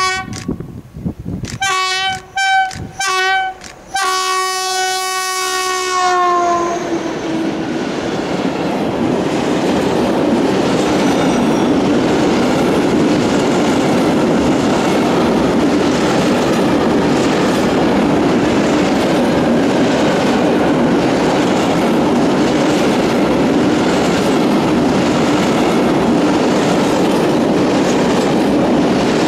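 A class 60 diesel-electric freight locomotive sounds its horn: three short toots, then a long blast about four seconds in that drops in pitch as the locomotive passes. The rest is the steady rumble and clickety-clack of a long string of covered hopper wagons rolling past.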